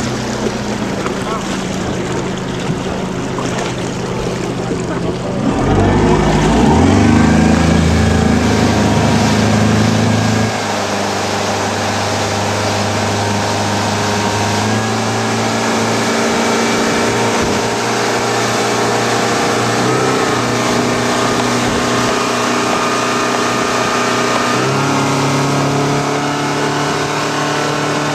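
Yamaha outboard motor on a speedboat towing an inflatable tube, with water rushing in the wake. Its revs rise about six seconds in, then it runs at a steady pitch, which shifts a little twice.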